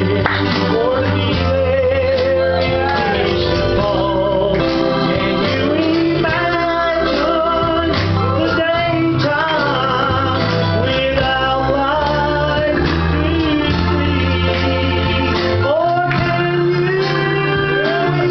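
Live gospel singing: a man and a woman sing into microphones over an amplified accompaniment with long held bass notes that change every few seconds.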